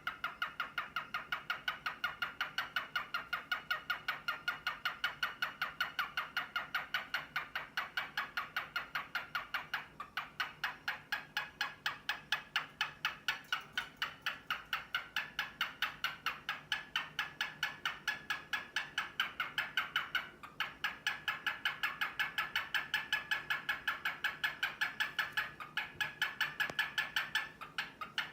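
Male cockatiel making a rapid string of short repeated courtship calls, about four or five a second, with a few brief pauses, as he displays to a female.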